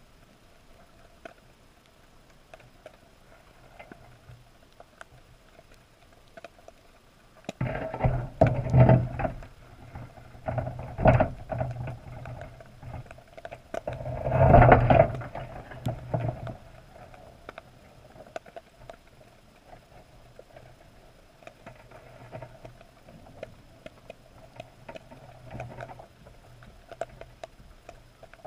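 Wire box crab trap knocking and rattling in a series of jolts, heard muffled underwater through a GoPro housing, as the salmon-head bait inside is jerked about. The loudest knocks come about 8, 11 and 14–15 seconds in, with faint ticking and a low steady hum before and after.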